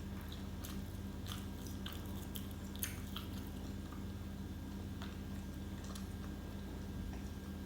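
Crunching of a crisp, pan-fried shredded-potato pancake, a scatter of small crackles mostly in the first few seconds, over a steady low hum.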